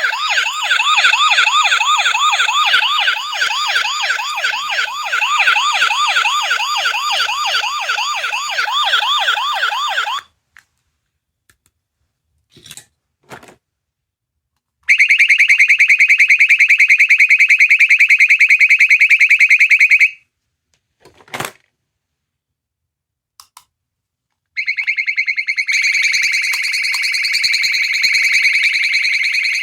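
Sound-effect capsule toy playing electronic sounds through its tiny speaker: first a fast warbling siren effect of about three quick rising sweeps a second, lasting about ten seconds. After a few short clicks comes a harsh steady buzzer tone for about five seconds, then after another click a second buzzing alarm tone starts near the end.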